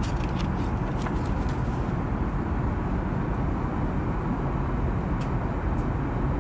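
Steady low rumble of an Airbus A380's cabin, with the crisp rustle of a paper menu's pages being turned in the first second or so and two light paper ticks near the end.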